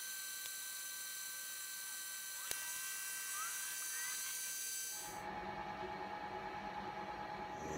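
Milling machine running while cutting slots in a pump gland nut for a hook spanner: a high-pitched machining whine with a single sharp click about halfway through. From about five seconds in, a fuller, lower machine hum with a slight pulsing takes over.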